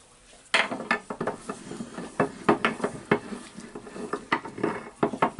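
Metal clinking and knocking as the rotary hammer's steel tool holder is set into a bench vise and clamped: an irregular run of sharp clicks.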